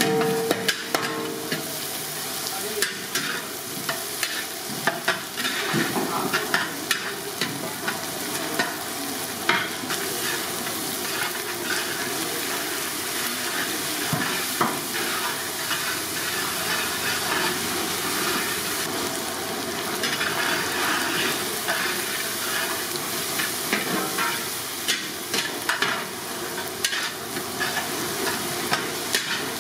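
Long metal spatula scraping and clacking against a large metal kadai in irregular strokes while egg, prawns and green chillies sizzle in hot oil.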